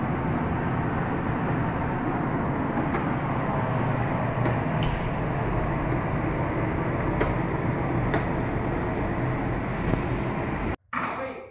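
Steady boiler-room machinery noise, with a few faint clicks scattered through it, cutting off suddenly near the end.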